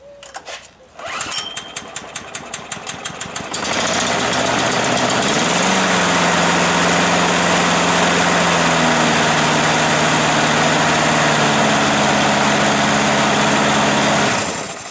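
Four-stroke engine of a Mountfield M64PD rotary mower pull-started on full choke from cold: it fires first time with a quick run of pulses, then runs loudly and steadily with the blade turning. It dies away shortly before the end as the operator-presence (dead man's) handle is released.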